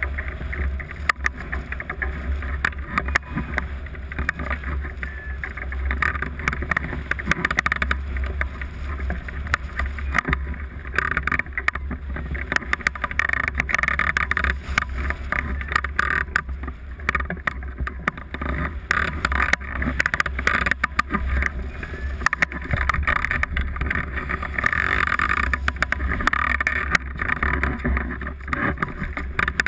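Wind rushing over the microphone of a camera mounted on a hang glider in flight: a steady low rumble with constant small crackles.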